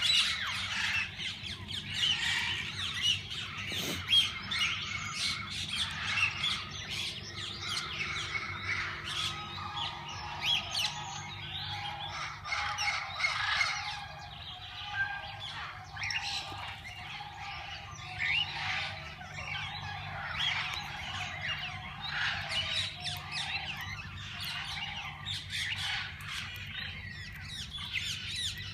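Chorus of many parakeets chattering, chirping and squawking continuously in an aviary.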